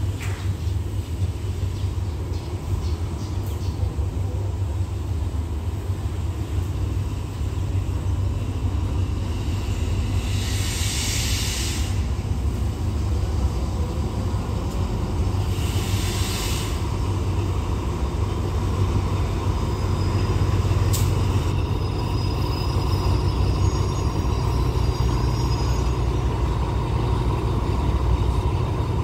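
Alsthom diesel-electric locomotive rumbling steadily as it draws a train slowly into the station to stop, growing a little louder near the end. Two sharp hisses of air from the train's brakes come about ten and sixteen seconds in.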